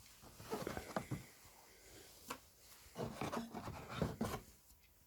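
Handling noises of a drone's carrying case and its contents being opened and checked: scattered clicks, light knocks and rubbing in a few short bursts, dying down near the end.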